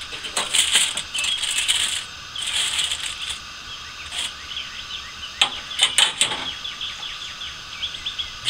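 Aluminium foil crinkling as a foil packet of ribs is crimped and pressed shut, in two spells over the first three seconds. Then several sharp clinks of metal grill tongs and spatula being set down, about five and a half to six seconds in.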